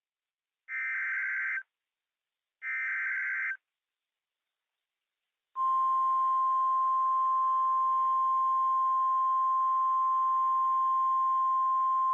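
Emergency Alert System broadcast header: two bursts of data tones about a second long each, then about two seconds of silence, then from about five and a half seconds in a steady single-pitch 1050 Hz weather warning alarm tone with hiss under it. The header and alarm tone signal the start of a new severe thunderstorm warning.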